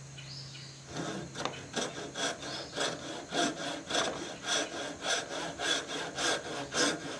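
A small homemade wooden takedown frame saw with a fine-tooth blade cuts down into the end grain of a piece of wood, starting about a second in. It saws in steady back-and-forth strokes, about three a second.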